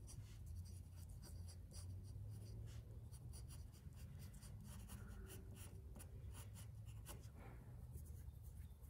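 Pencil scratching on paper in many quick, short strokes, faint.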